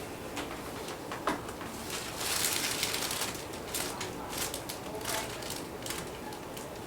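Rustling and handling on a chiropractic table with a series of short, sharp clicks during a chiropractic adjustment. The sharpest click comes about a second in, and a burst of rustling follows about two seconds in.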